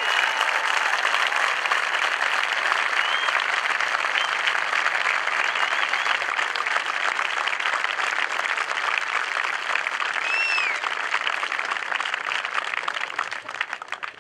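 Large outdoor crowd applauding, a dense sustained clapping that dies away just before the end.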